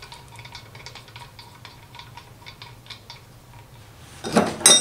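Light, irregular metal clicks of a brass temperature sensor being spun by hand into an engine cylinder head, then near the end a loud metallic clatter with a brief ring as a spanner is taken up.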